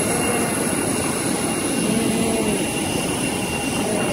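Jet aircraft turbine noise on an airport apron: a steady rushing hum with a thin, constant high-pitched whine.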